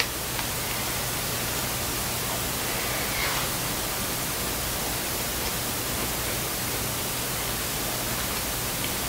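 Steady hiss of background noise with a faint low hum underneath.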